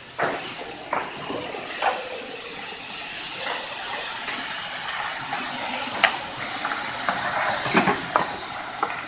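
Aluminium pressure die casting machine at work: a steady hiss with metal clanks and knocks scattered through it, the loudest near the end.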